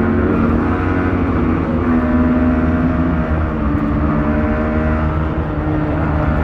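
Yamaha MT-15's single-cylinder engine running through its stock exhaust, steady revs that shift up and down in pitch a few times.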